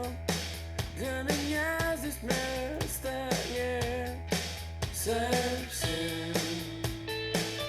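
A rock-style song with a sung vocal over bass and a steady beat, played back through an Akkord 201 stereo amplifier and recorded by a camera's microphone.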